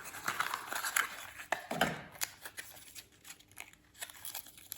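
Small clicks and rustles of hearing-aid packaging being handled and opened, in irregular short bursts.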